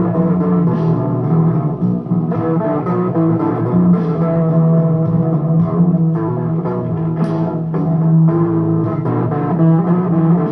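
Electric guitar playing a blues, a low note held for long stretches with changing notes picked above it.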